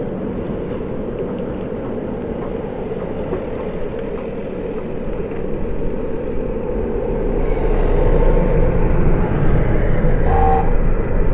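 Racing road bikes in a peloton passing close by: a steady rushing hum of tyres on asphalt that grows louder about two-thirds of the way through, with a short pitched tone near the end.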